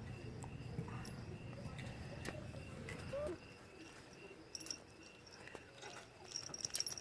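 Faint insects chirping in a steady, evenly pulsed rhythm, with a few small clicks and rustles and a low rumble that stops about three seconds in.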